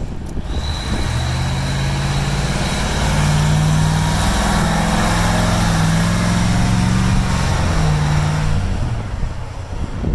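A Scammell Nubian Mk10E fire tender's turbocharged Cummins V903 V8 diesel engine pulling away and driving past, its engine note stepping up and down in pitch, with tyre hiss on wet tarmac. It is loudest mid-way and fades near the end as the truck moves off.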